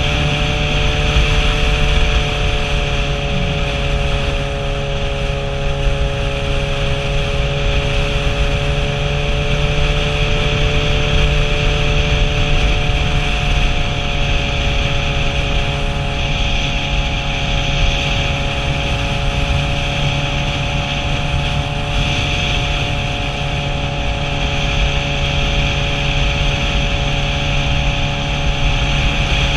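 Motorcycle engine running at a steady cruising speed, its note holding almost level, under a heavy, even rumble of wind noise on the microphone.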